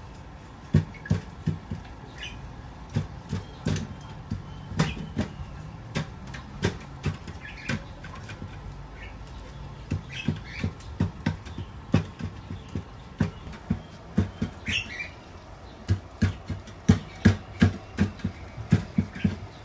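Cooking work at a metal baking setup: many irregular sharp knocks and clinks of utensils striking metal, a few at a time, with a few short high squeaks.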